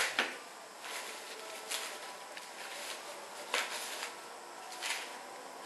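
Brief, scattered rustles of a foam packaging sheet being handled around a flat-screen TV, four or five short bursts a second or so apart.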